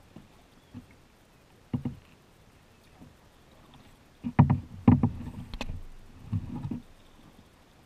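Kayak paddle strokes in flat water: the blade dipping and splashing, with a few sharp knocks, irregularly spaced and loudest in a cluster a little past the middle.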